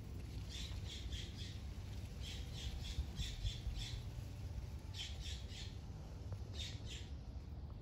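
A bird calling in runs of short, repeated notes, two to six at a time, with pauses between runs.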